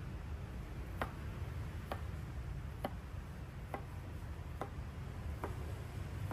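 Knife cutting root vegetables on a cutting board: six sharp knocks at an even pace, a little under a second apart, over a low steady hum.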